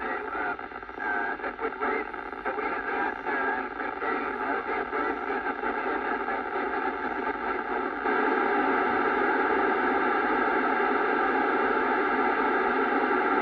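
Kenwood TS-790 transceiver on the ISS downlink frequency hissing as the space station's FM signal fades. The audio is broken and noisy at first, then about eight seconds in becomes a steady, louder rush of FM receiver noise as the signal drops out.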